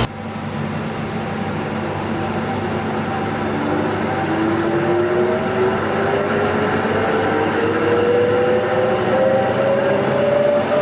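ŻEFAM DCHJA-63 surface planer (jointer) running, its motor and cutterhead giving a whine that rises slowly and steadily in pitch over a steady mechanical hum as the machine speeds up.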